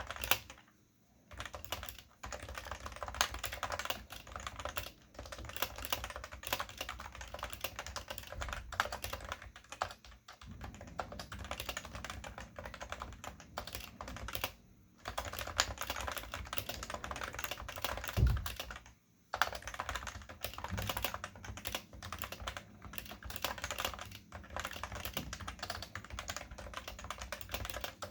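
Cooler Master NovaTouch keyboard with Topre switches being typed on: fast, steady runs of keystrokes broken by a few brief pauses, with one heavier low thump about two-thirds of the way through.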